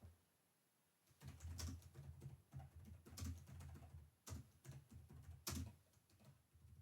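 Typing on a computer keyboard: a run of keystrokes starting about a second in, with a few louder key presses among them.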